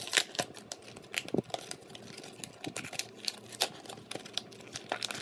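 Clear plastic toy packaging crackling and crinkling as fingers pick at it and tear it open, with an irregular run of sharp clicks.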